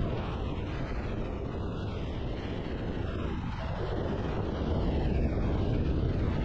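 Wind rushing over the microphone, with the steady drone of a Triumph Tiger 1200 motorcycle cruising at road speed underneath.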